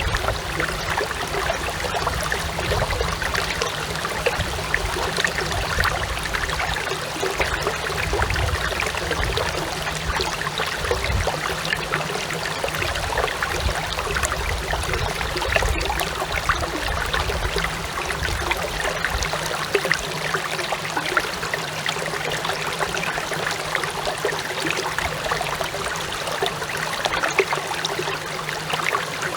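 A clear stream babbling and splashing steadily over rocks, picked up on a smartphone microphone. A low rumble under the water noise fades out about two-thirds of the way through.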